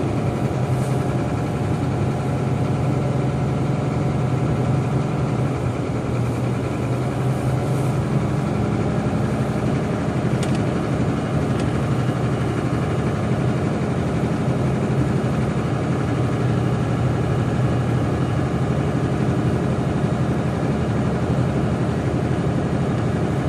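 Jet airliner engines idling: a steady drone with a low hum.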